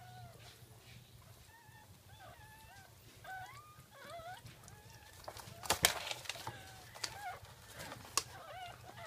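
Newborn Jack Russell puppies squeaking and whimpering: many short, high, wavering cries, overlapping. A couple of sharp knocks come about six seconds in, and another near the end.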